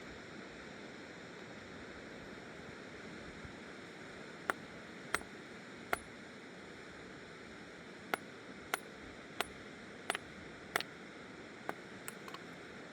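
Steady rush of flowing river water. From about a third of the way in comes a series of about a dozen sharp, irregularly spaced knocks.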